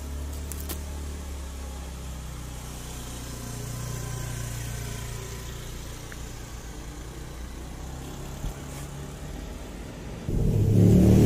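Low, steady hum of a motor scooter's engine as it rides off down the street, swelling slightly about four seconds in. Loud music cuts in suddenly near the end.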